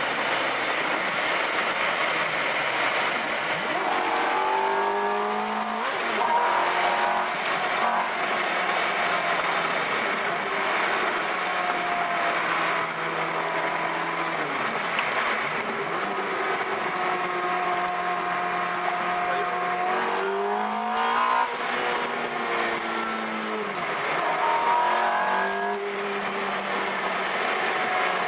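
Ferrari F430's V8 through a Meisterschaft race exhaust, heard from inside the cabin while driving: the revs climb and drop several times through the gears, with a steadier cruising stretch in the middle.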